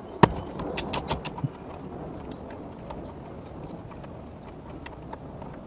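Ratchet wrench clicking while loosening the 10 mm bolts above a car's factory radio: a sharp click, a quick run of clicks in the first second or so, then a few fainter clicks.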